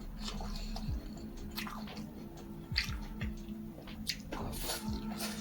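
Someone chewing and biting food, with wet mouth sounds and scattered small clicks, over a low steady hum.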